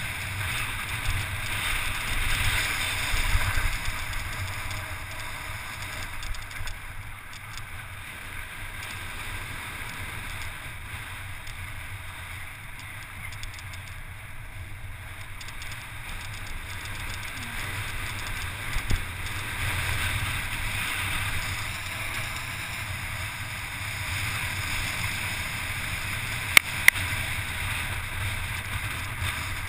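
Wind rushing over an action camera's microphone as a mountain bike descends a loose volcanic gravel track at speed, with the rumble of the tyres and bike over the gravel underneath. Two sharp knocks near the end.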